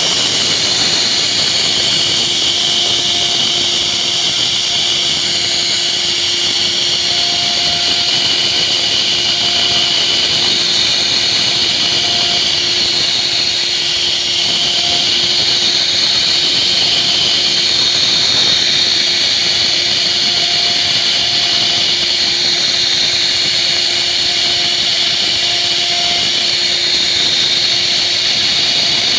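CNC router spindle running steadily with a high whine while cutting wood.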